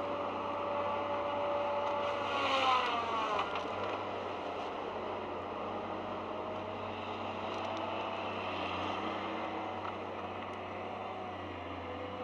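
Heavy machine's engine running steadily, its pitch dropping about two and a half seconds in along with a brief hiss, then running on evenly.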